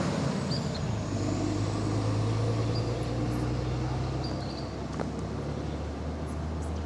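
A vehicle engine idling steadily as a low hum, with a few short bird chirps above it and a single click about five seconds in.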